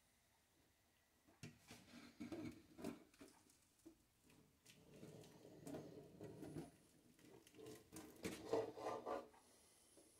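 Just-boiled water poured over a thin plywood strip clamped in a jig and splashing into a stainless-steel sink. It comes as faint, irregular splashes and knocks, starting about a second and a half in and stopping shortly before the end.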